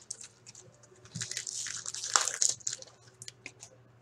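Foil trading-card pack wrapper crinkling and rustling as it is torn open, followed by a few light clicks from the cards being handled.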